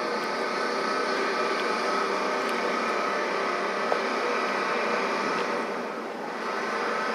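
Steady mechanical drone with a faint held hum, easing briefly about six seconds in, and a single small click about four seconds in.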